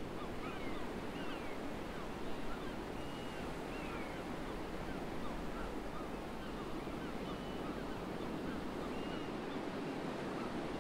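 Shoreline ambience: small waves washing on a rocky shore, with wind, as a steady even rush, and faint short high chirps scattered throughout.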